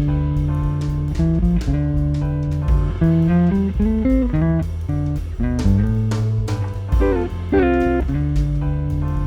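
Fender electric guitar on its neck pickup playing jazzy chords and single-note lines through a valve amp, over a backing track with bass and drums.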